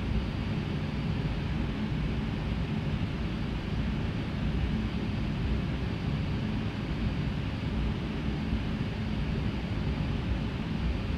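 Steady airliner cabin noise in flight: an even rushing of engine and airflow with a low hum underneath, holding level throughout.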